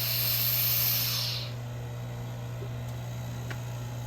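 Air hissing back into a vacuum chamber as the vacuum is released, dying away about a second and a half in, over a steady low hum.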